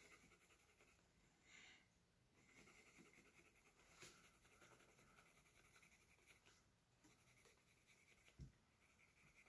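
Very faint scratching of a colored pencil shading on sketchbook paper, in short stretches, with a soft bump a little before the end.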